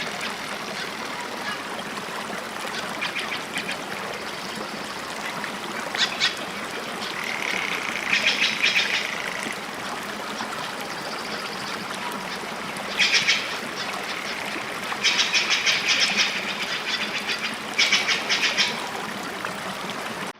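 Steady rush of flowing water with rapid, rattling animal calls breaking in over it several times, each burst lasting about half a second to a second and a half.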